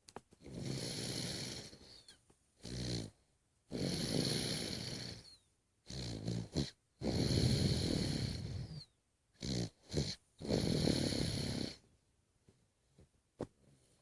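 A sleeper snoring: four long snores about three seconds apart, with shorter breaths between them, stopping about twelve seconds in.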